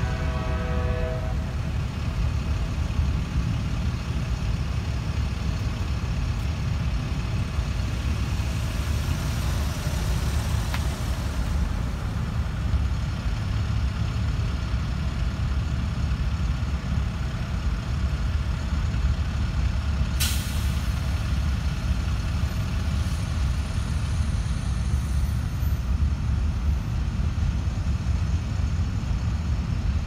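A diesel locomotive horn chord cuts off about a second in, followed by the steady low rumble of a freight train's cars rolling by. A single sharp click sounds about two-thirds of the way through.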